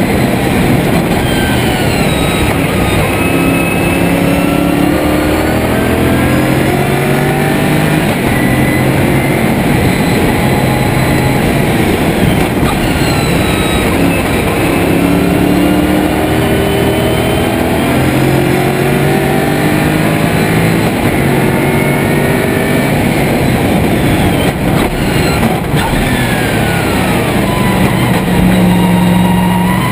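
Lotus Esprit V8 race car's V8 engine heard from inside the cockpit at racing speed, its pitch climbing repeatedly and stepping down at each gear change as it accelerates and slows for corners.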